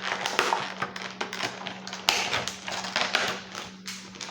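Makeup brush set and its packaging being handled: a dense, irregular run of quick taps, clicks and rustles.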